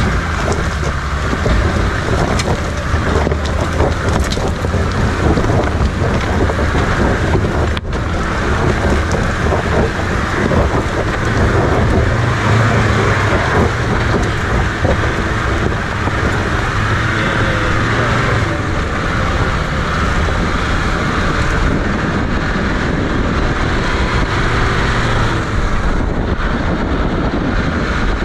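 Off-road jeep driving along a rough, stony dirt track: engine running steadily under tyre noise from the loose stones, with wind on the microphone at the open side window.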